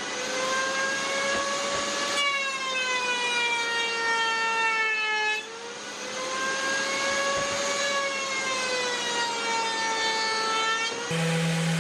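High-speed electric router in a router table running and cutting a hardwood cutting board. Its high whine sags in pitch as a pass loads the bit, then climbs back, twice. Near the end it gives way abruptly to a lower, steadier machine hum.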